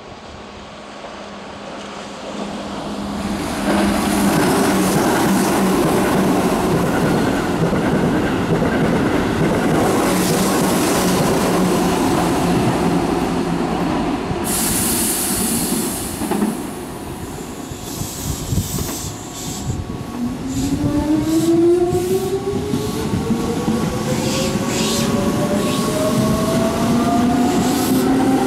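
Keihan electric train running past on the rails: wheel rumble and clatter builds up and stays loud, with a short hiss about halfway through. About twenty seconds in, an electric train's traction motor whine starts and climbs steadily in pitch as the train accelerates.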